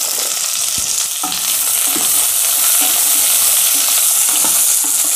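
Vegetables sizzling in sesame oil in a pressure cooker pot. Sliced radish is tipped in at the start, then a spatula stirs the mix, scraping and knocking against the pot while the sizzle goes on.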